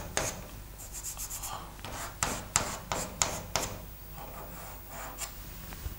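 Chalk writing on a blackboard: a series of short scratching strokes and taps.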